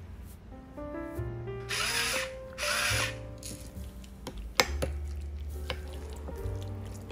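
Light background music with a stepped melody and bass notes. Over it a metal spoon twice scrapes through tuna mayonnaise in a ceramic bowl, about two and three seconds in, and gives one sharp clink against the bowl a little past halfway.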